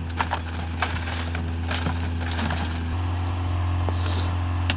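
Shards of a smashed car rear window clinking and cracking as the broken glass is knocked out of the frame: a string of sharp taps and clicks in the first three seconds, over a steady low hum.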